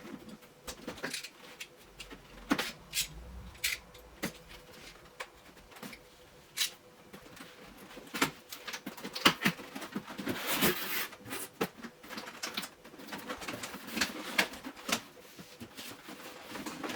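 Plastic toy parts and cardboard packaging being handled during an unboxing: scattered clicks and knocks, with a longer rustle about ten seconds in.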